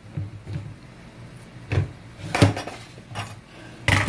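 A large metal cooking pot full of drained spaghetti being handled and set down on a tiled counter: a series of separate clunks and knocks of metal, the loudest a little past halfway.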